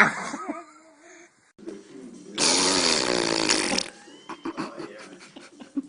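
A fart sound played for a baby: a loud buzzing blast lasting over a second, starting about two and a half seconds in, with a few short sounds from the baby before it.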